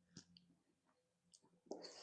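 Faint mouth sounds of someone eating spicy chicken feet: a few soft clicks and smacks, then a louder wet chewing sound near the end.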